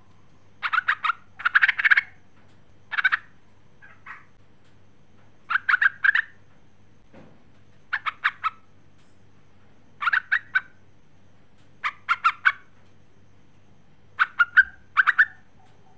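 Yellow-vented bulbul (trucukan) calling in short bursts of quick, stuttering notes, three to six notes a burst, about eight bursts spaced a second or two apart. It is offered as a female bulbul's call to a male.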